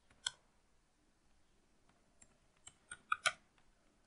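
Keystrokes on a computer keyboard: a single key tap just after the start, then a quick run of about five or six taps a couple of seconds in.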